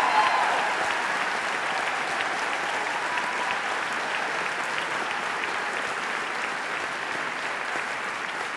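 A large audience applauding, the clapping slowly fading away.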